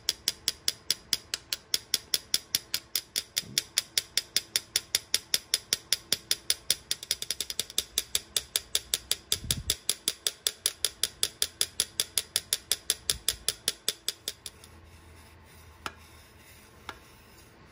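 Small metal-headed hammer tapping lightly and rapidly on a trumpet valve casing over a steel mandrel, about five even taps a second, to tap out a dent in the casing. The tapping stops about three-quarters of the way through, leaving a couple of faint clicks.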